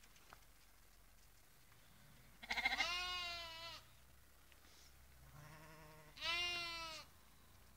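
A lamb bleating: two long, wavering bleats about three and a half seconds apart, with a fainter, lower bleat between them.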